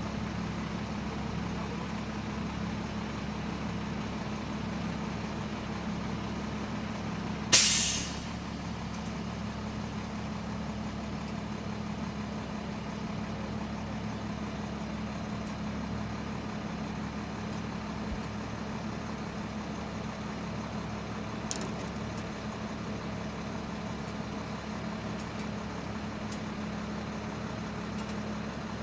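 A heavy truck-type engine idling steadily, with one short, loud hiss of released air about seven and a half seconds in, and a faint click later on.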